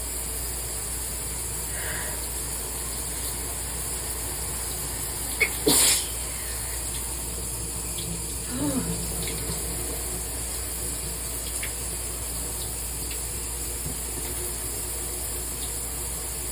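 Shower water running steadily, with one sudden sneeze a little over five seconds in, followed near nine seconds by a brief vocal sound.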